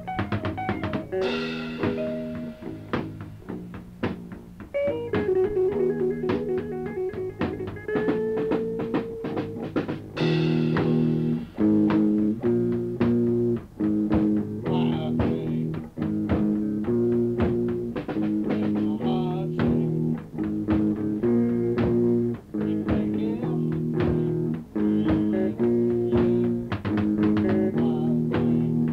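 A rock band playing: electric guitar, bass and drum kit. A held, wavering guitar note sounds a few seconds in, and about ten seconds in a cymbal crash brings in a louder full-band section of repeated chords over a steady drum beat.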